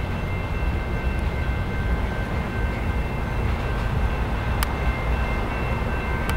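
BNSF diesel locomotive approaching at the head of a grain train of covered hoppers, its engine and wheels giving a steady low rumble, with a few faint steady high tones over it and one sharp click about four and a half seconds in.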